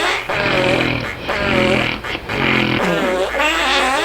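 Repeated snoring with fart-like rattling breaths and wavering, whistly tones, about three snores in a steady rhythm.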